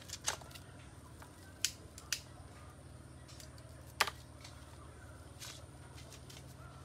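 Hands working the strands of a yellow three-strand synthetic rope while tying a knot: four sharp clicks and light handling noise, the loudest click about four seconds in, over a faint steady low hum.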